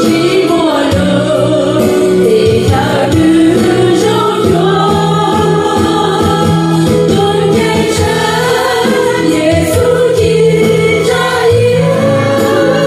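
Music: a choir singing a song with instrumental backing.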